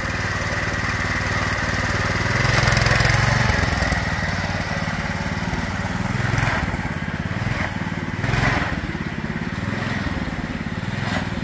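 Go-kart's single-cylinder Duromax 208cc engine, governor removed and fitted with a rev-limiting ignition coil, revving up and down under throttle as the kart drives. It is loudest in a high-rev burst about two to three and a half seconds in, then keeps rising and falling.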